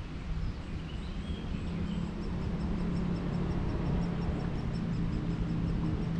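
Outdoor ambience: a steady low rumble with a hum, a few faint bird chirps about a second in, and a faint, fast, high ticking of about five ticks a second.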